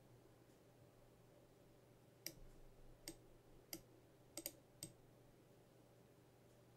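Computer mouse clicking, about six sharp clicks in under three seconds, two of them a quick double click, over a faint steady hum.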